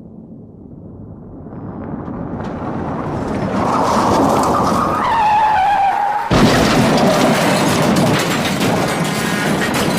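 Car crash sound effect. A car's engine and road noise build up as it approaches, and tyres squeal in a skid for a couple of seconds. About six seconds in comes a sudden impact, followed by a dense clatter of crashing debris.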